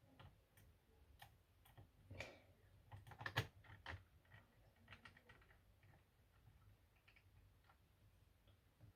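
Faint, irregular small clicks and taps of screws and a small screwdriver being worked on a laptop's plastic back plate, with a few louder taps a couple of seconds in.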